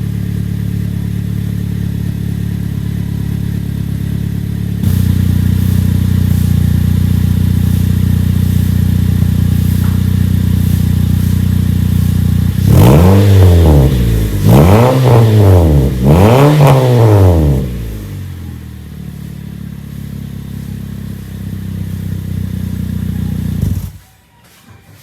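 Car exhaust with the resonator and catalytic converter replaced by stainless spiral piping, the engine idling steadily. Partway through it is revved three times in quick succession, each rev rising and falling, then it drops back to a quieter idle and cuts off near the end.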